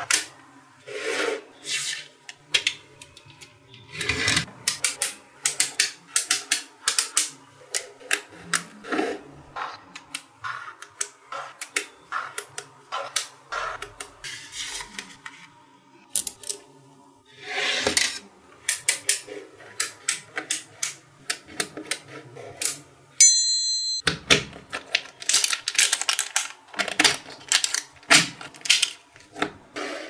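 Small magnetic balls clicking and snapping against one another as blocks of them are pressed and fitted together, in quick irregular runs of sharp clicks.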